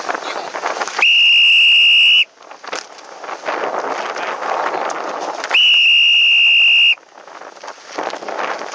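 Two long, steady, high-pitched whistle blasts, each just over a second long, about four and a half seconds apart: on-water race sound signals during a sailing match race start sequence. Wind noise on the microphone runs between them.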